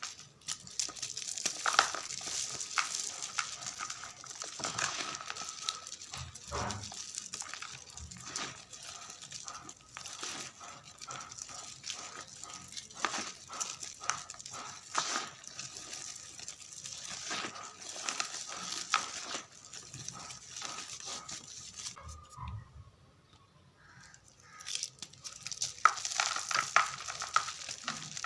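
Gym chalk mixed with confetti being crumbled and crushed by hand: dense crackling and crinkling, with a pause of about two seconds near the end before it starts again more loudly.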